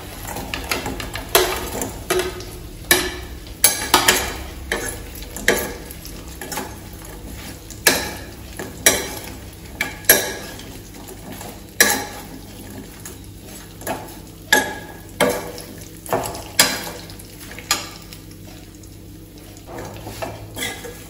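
Perforated steel skimmer scraping and knocking against a steel kadai as fried chicken pieces are stirred into chili paste, with irregular sharp clanks about a second apart, fewer near the end. A low sizzle of hot oil runs underneath.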